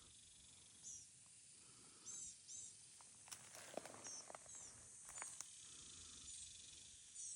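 Faint woodland wildlife: short high chirps repeating every second or so over a steady high insect drone, with a few crackles and clicks about halfway through.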